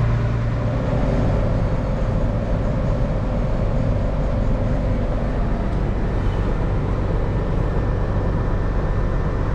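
Large farm machine's diesel engine running steadily with a constant low drone.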